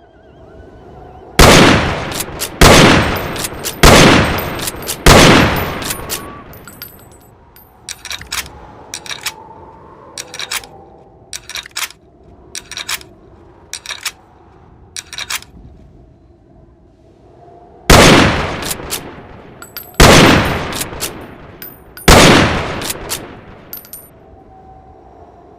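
Henry lever-action rifle firing four shots about a second apart, each with a ringing tail. A long run of short metallic clicks and clacks from the rifle's action follows. Three more shots come about two seconds apart, then a few more clicks near the end.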